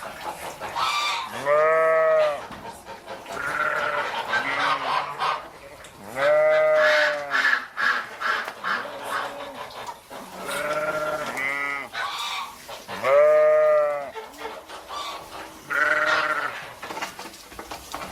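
Goat bleating over and over: four loud, drawn-out bleats of about a second each, with quieter shorter bleats between them.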